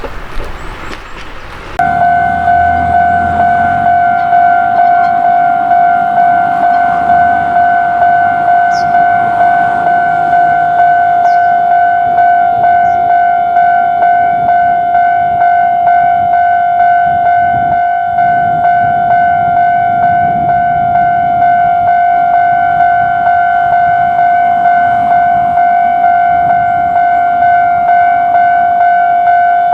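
Japanese railway level-crossing alarm ringing its repeated 'kan-kan' tone, about one and a half strikes a second, starting abruptly about two seconds in after a brief stretch of noise.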